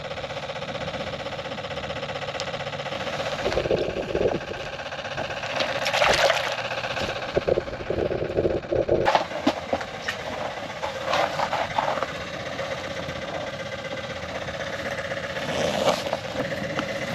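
A small engine running steadily, its pitch rising for a few seconds in the middle and then settling back.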